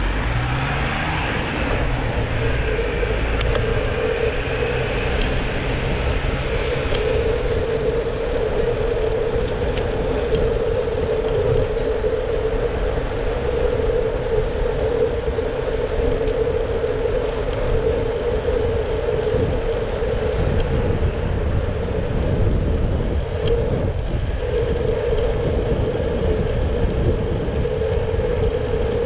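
Road noise from riding a Brompton folding bike in city traffic: a steady mid-pitched whir over a low rumble of wind and tyres, with a motor vehicle passing close by in the first few seconds.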